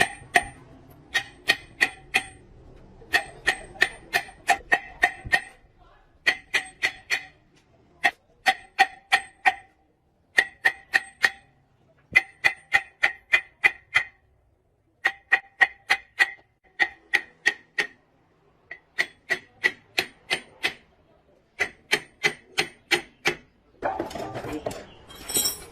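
Hammer blows on steel, in quick runs of four to eight ringing strikes with short pauses between the runs. A couple of seconds of denser, noisier sound come near the end.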